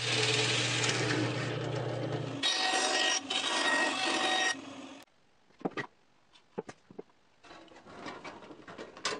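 A drill press running, with its large bit boring through plywood for about two and a half seconds, then a bandsaw cutting plywood for about two seconds. After that come a few sharp snips from tin snips cutting sheet metal.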